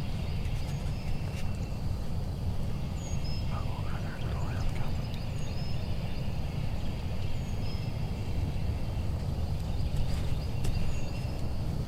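An Osceola wild turkey gobbler gobbling once in the distance, a short rattling call about four seconds in. Small birds chirp high and faint every second or two over a steady low rumble.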